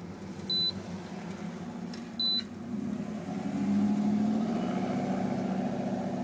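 Two short high beeps from a handheld CanOBD2 code reader as its buttons are pressed to clear the trouble codes. About three seconds in, a steady low hum sets in and swells, becoming the loudest sound.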